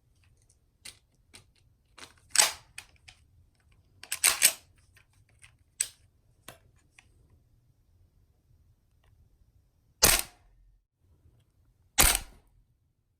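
Scattered light clicks and knocks, then two sharp airsoft gun shots about two seconds apart, each with a short ring after it.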